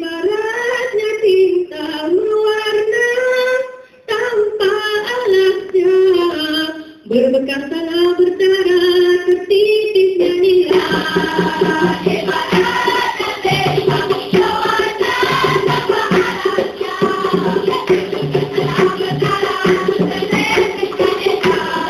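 Dikir barat singing by female voices: one voice sings a long, winding melodic line with short breaks for about the first ten seconds. Then the group comes in singing together over steady rhythmic hand percussion.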